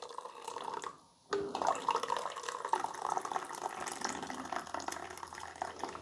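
Hot coffee pouring in a thin stream from a push-button thermal carafe into a glass mug, splashing as the mug fills. The pour stops for a moment about a second in, then runs on steadily.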